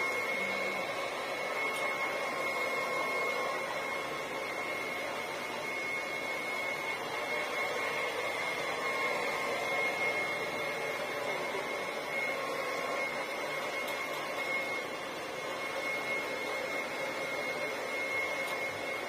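Handheld hair dryer running steadily: an even rush of air with a thin, constant high whine on top. It is a personal-use dryer, not a salon model, and its user finds it weak.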